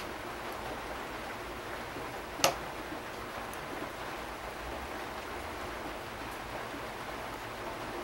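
Steady low hiss with a single sharp click about two and a half seconds in.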